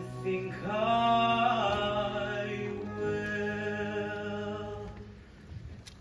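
A young man singing a musical-theatre song live on stage over instrumental accompaniment, drawing out a long held note from about half a second in.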